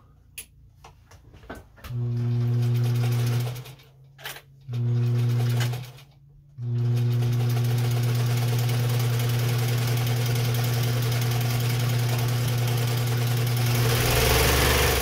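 Home Mark class 15 straight-stitch sewing machine sewing a test seam. A few light clicks come first, then two short runs of stitching and a long run of about eight seconds, all at a steady speed, with the last run winding down near the end.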